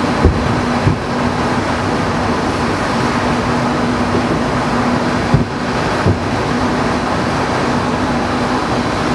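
Distant fireworks shells bursting as short dull booms, two near the start and two more a little past halfway, over a steady rushing background noise with a low hum.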